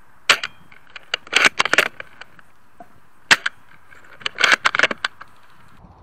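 Airsoft guns firing: a sharp single shot near the start and another a little after three seconds, with two quick bursts of rapid clicking shots in between and after.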